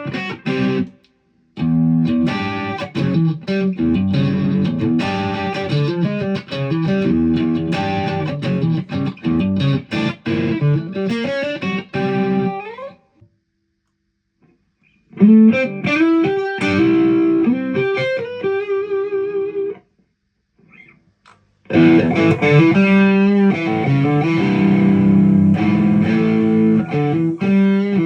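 Ibanez Prestige RG electric guitar played through an amp with effects: quick single-note runs and chords in phrases. The playing stops twice, about halfway through and again some seconds later, before picking up.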